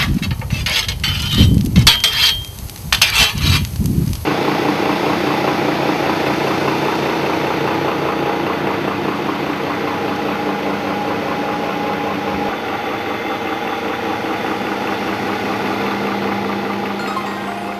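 Loud, uneven rumbling with scattered knocks for about four seconds. Then, after an abrupt change, a belt-driven machine in a brick-kiln shed runs with a steady drone and a fixed hum.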